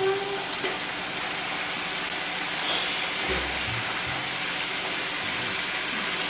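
Bacon frying in a pan on the stove, a steady sizzle.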